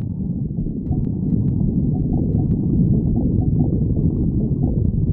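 Human stomach growling: a continuous low rumbling gurgle with short squeaky bubbling notes over it.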